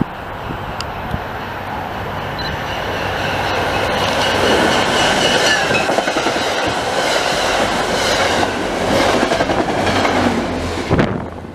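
Commuter rail push-pull train passing a station platform at speed, cab car first and the diesel locomotive at the rear: wheels clattering over the rails, growing louder as the coaches go by close. The sound cuts off suddenly near the end.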